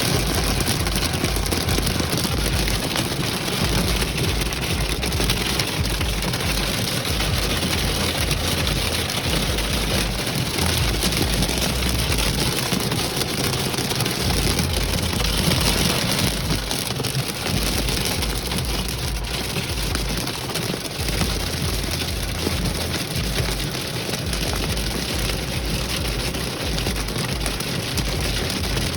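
Hail and heavy rain pelting a stopped vehicle, a loud dense drumming, with an uneven low rumble underneath.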